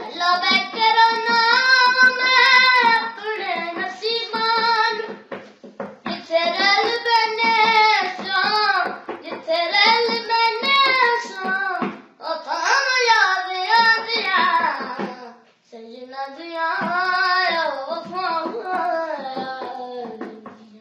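A young boy singing alone without accompaniment, in long melismatic phrases with short breaks for breath between them.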